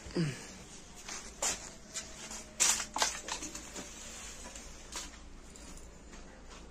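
Scattered short clicks and rustles of things being handled, loudest in a cluster around the middle, with a short falling squeak about a quarter second in.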